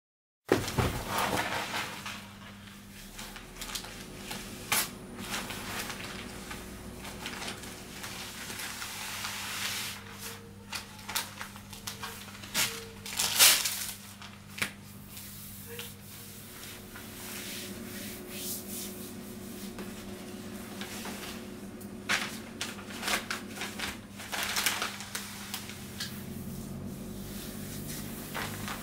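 Self-adhesive vinyl wallpaper being handled and smoothed onto a wall: crinkling of the plastic sheet and its backing and hands rubbing it flat, with sharp crackles now and then, the loudest about 13 seconds in. A steady low hum runs underneath.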